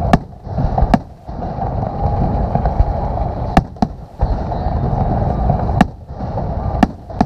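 Fireworks display: sharp bangs of shells bursting about six times, irregularly spaced a second or two apart, over a continuous rumble.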